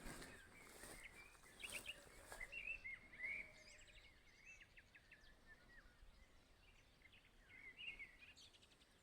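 Faint birdsong: small birds giving many short, high chirps and quick falling notes, over a quiet background.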